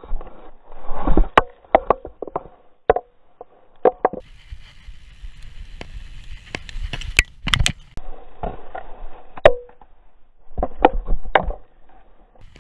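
Mountain bike rattling over a rough dirt trail: repeated sharp knocks and clatter from the frame and chain over bumps and landings, with rumble in between. A steady high hum joins for a few seconds after about four seconds in.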